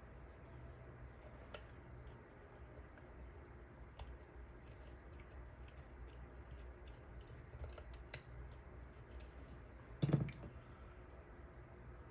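Picking tools clicking irregularly against the pins in a dimple lock's cylinder as the pins are set one by one, with one louder knock about ten seconds in.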